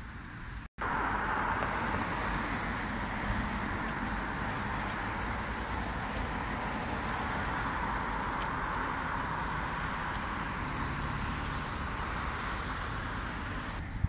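Steady traffic noise from cars driving on a rain-wet road, an even hiss without a single pass-by standing out. It starts abruptly after a short dropout just under a second in.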